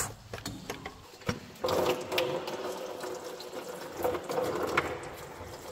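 A few sharp clicks as the old water pump is wiggled loose. About one and a half seconds in, a steady stream of engine coolant starts running out past the loosened pump into a catch pan below.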